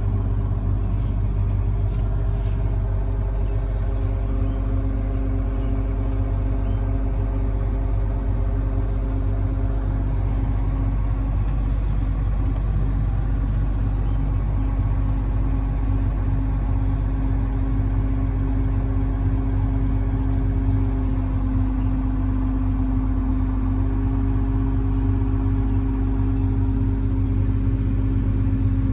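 Case IH 2188 Axial-Flow combine harvester's diesel engine running steadily at a constant speed.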